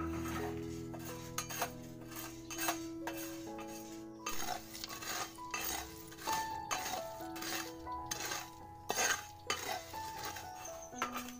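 Metal spoon stirring coffee in a glass mug, clinking against the glass many times at an uneven pace, over background music.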